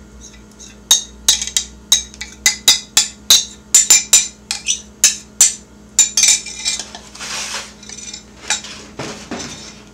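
Metal kitchen utensil clinking repeatedly against containers while coconut milk is added to a blender, about three sharp clinks a second. Near the end there are about two seconds of softer rushing noise, then a few more clinks.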